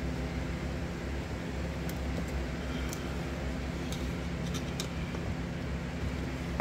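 Steady low mechanical hum in a workshop, with a few faint light clicks of a steel pick against a brake caliper's piston and bore.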